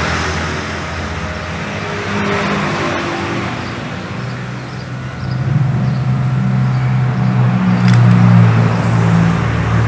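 An engine running, a steady low hum that grows louder about halfway through.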